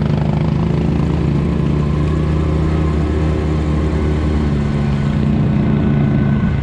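Side-by-side off-road vehicle's engine running at a fairly steady pitch.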